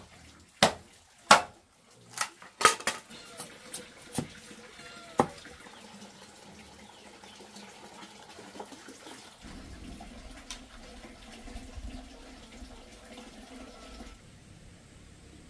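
Machete blade chopping into a bamboo post: a run of sharp knocks over the first three seconds, thinning to a few single strikes. It then goes on as quieter scraping and shaving strokes of the blade on wood.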